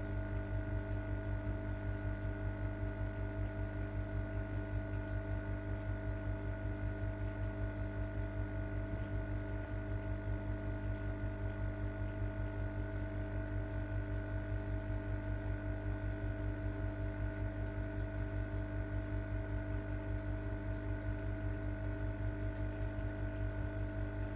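Steady electrical hum of running aquarium equipment: a low mains-type hum with several higher steady tones over it, pulsing slightly about four times a second.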